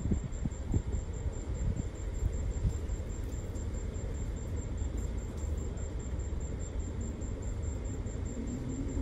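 Steady low rumble of outdoor background noise, with a few soft thumps in the first second.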